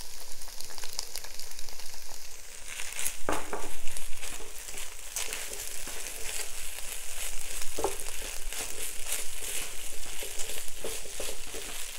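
Fried rice sizzling in a hot wok while a spatula stirs and tosses it, scraping and clicking against the pan. There are two sharper knocks, about three seconds in and near eight seconds.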